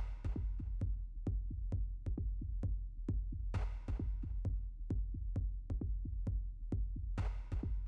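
Electronic dance music with a steady drum-machine beat, with a brief hissing swell about three and a half seconds in and again near the end.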